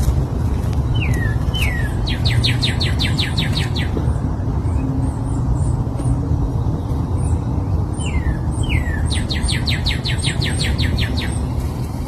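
A songbird sings the same phrase twice, about six seconds apart: two or three downslurred whistles, then a fast trill of about ten notes. Other birds chirp faintly and high, over a steady low rumble.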